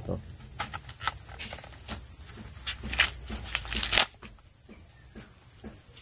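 Steady high-pitched chorus of crickets, with irregular dry crackling and rustling of corn husks being pulled back from an ear.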